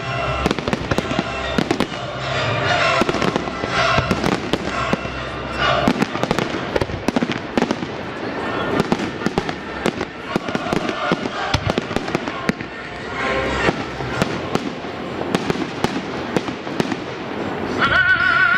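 Aerial fireworks bursting in rapid, irregular succession, many sharp bangs and crackles, over music.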